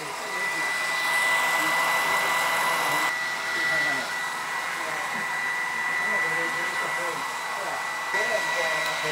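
Hand-held hair dryer running steadily, a high motor whine over the rush of air, blow-drying hair at the end of a haircut. The airflow is a little louder for a couple of seconds near the start.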